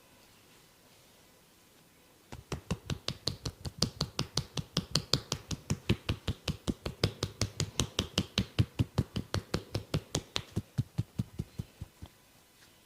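Massaging hands tapping rapidly on the body in a steady rhythm, about five strikes a second, each a dull slap with a sharp click. The tapping starts a couple of seconds in and stops shortly before the end.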